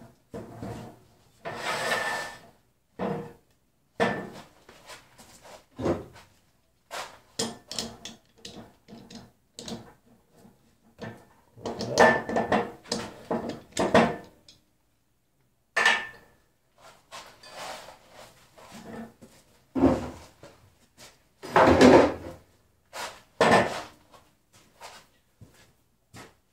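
Wooden bowl blanks and a metal lathe chuck being handled and set down on the lathe bed: irregular knocks, clunks and scrapes of wood and metal, in scattered bursts with a short pause midway.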